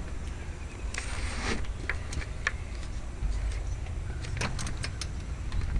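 A storm door being handled and opened: a brief rustle about a second in, then a scatter of sharp clicks and knocks from the latch and frame, over a steady low rumble from the helmet-mounted microphone.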